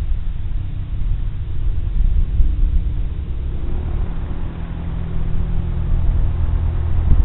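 Light single-engine propeller plane's piston engine running close by, a steady low drone that grows louder about halfway through.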